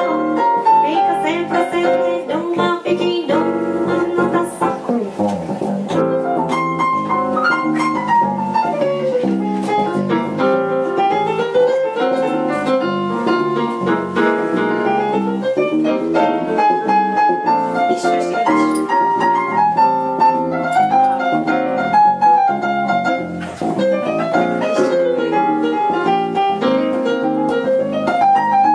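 Instrumental passage on a Korg stage piano, playing a melodic solo with chords, accompanied by an electric bass.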